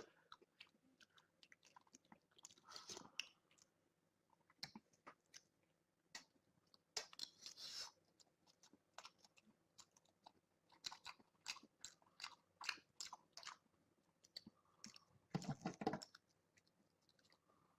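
A man chewing food with his mouth open: quiet, wet smacking and clicking in quick, irregular succession. This is the noisy open-mouthed chewing that listeners call kucha-kucha. Two longer, louder bursts come about seven seconds in and again near the end.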